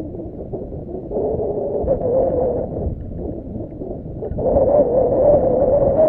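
Electric bow-mount trolling motor on a bass boat whining steadily over water and wind noise, its pitch stepping up about a second in and again after four seconds, louder the second time.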